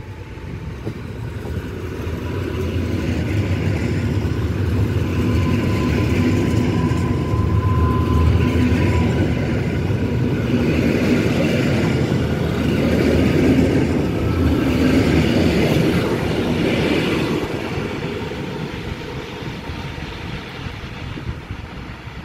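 Two coupled EN57AL electric multiple units rolling along the platform close by. Wheels and motors make a dense rumble that builds over the first few seconds, holds loud through the middle and eases off near the end. A thin steady whine runs under it for the first several seconds.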